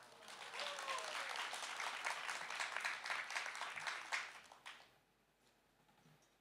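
Audience applauding, dying away after about five seconds.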